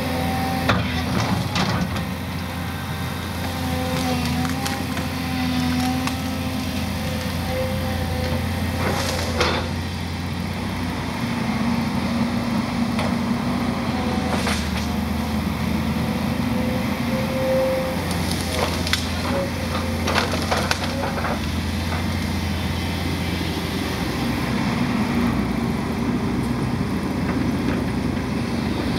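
Volvo 210 excavator's diesel engine running steadily with a faint whine, as the bucket and thumb grab and crush brush. Branches crack and snap sharply several times.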